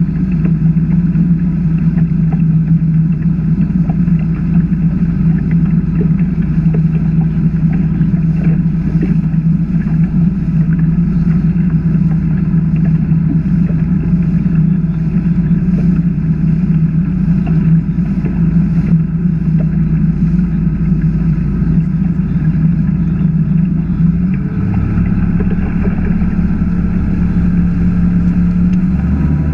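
A 21-foot Chaparral H2O bowrider's engine running steadily under way, with the rush of wind and water over the hull. Near the end the engine note changes.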